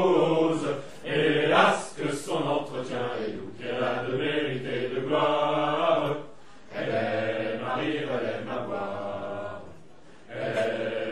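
Male singing of a chant-like song, sung in phrases with short breaks between lines.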